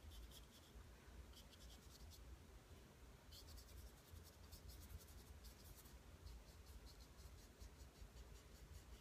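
Faint, quick scratching of an oil-paint brush on canvas, in short runs of strokes, over a low steady hum.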